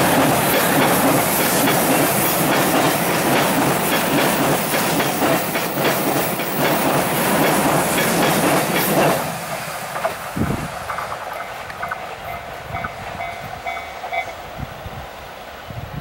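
E351-series limited express passing close at high speed, its wheels clattering over the rail joints, until the last car goes by about nine seconds in and the noise drops away suddenly. Afterwards a level-crossing warning bell rings faintly and repeatedly.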